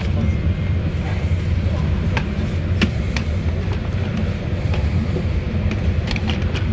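Steady low rumble inside a Boeing 787-8 passenger cabin, with scattered sharp plastic clicks and knocks as a seatback tray table is lowered, unfolded and slid into place.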